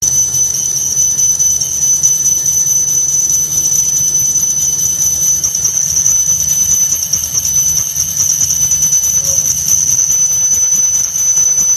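Lathe cutting tool turning a metal sprocket or pulley blank under coolant, giving a steady high-pitched tone over the machine's low hum.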